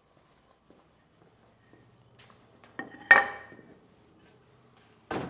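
A wooden turning blank set down on a table saw's top: a light knock, then a loud sharp knock with a brief ring, and another knock near the end as the block is moved. The saw is not running.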